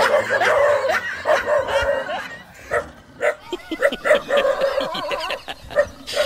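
Dog barking and yipping repeatedly, agitated by a stuffed toy tiger.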